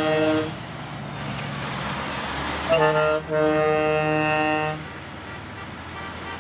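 Truck air horn blowing: one blast ending about half a second in, then a second blast of about two seconds starting near the three-second mark, both on the same low note. Between and after the blasts, engine and tyre noise of vehicles driving past.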